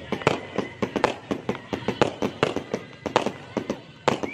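Fireworks going off in a rapid, irregular series of sharp bangs and crackles, several a second.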